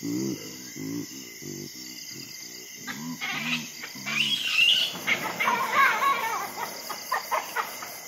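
Natural ambience of insects trilling steadily, with a run of low calls repeated about three times a second in the first half. Varied bird chirps and warbling calls take over from about three seconds in and are the loudest part.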